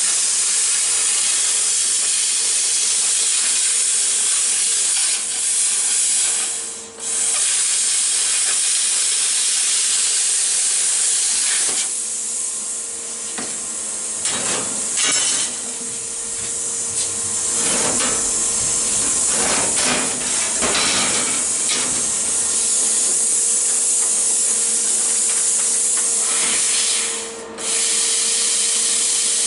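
Handheld air plasma cutter cutting 14-gauge sheet steel: a loud, steady hiss that cuts out briefly about seven seconds in and again near the end as the arc is stopped and restarted. Partway through, the hiss gives way to a quieter stretch of scraping and knocks as the steel sheet is shifted on the metal grate.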